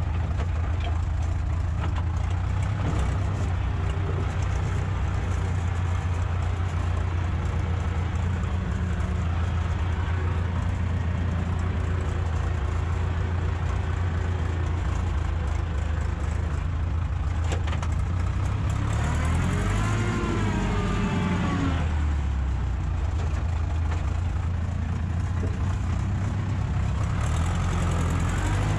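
Ursus tractor's diesel engine running steadily under load while cultivating. About twenty seconds in its pitch dips and climbs back, and near the end it starts to rise again.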